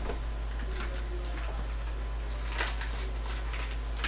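A few short rustles and light clicks of kitchen handling as the packet of gravy mix that came with the turkey is opened over a small saucepan, over a steady low hum.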